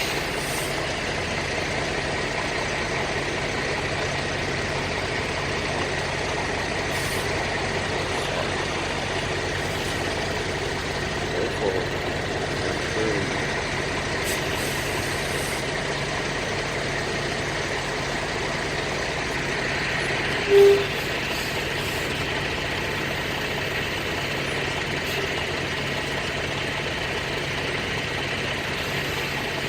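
Semi truck's diesel engine running steadily at idle, with one short beep about two-thirds of the way through.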